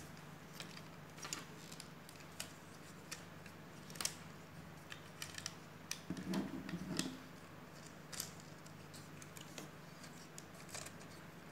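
Faint, irregular clicks of plastic LEGO pieces being handled and pressed together as wheels are fitted onto a small brick model, with a short busier patch of handling about halfway through.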